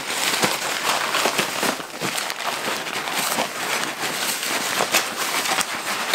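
Backpack rain cover and bag fabric rustling and crinkling, with scattered clicks and knocks, as racing drone quads are fitted onto the back of the bag.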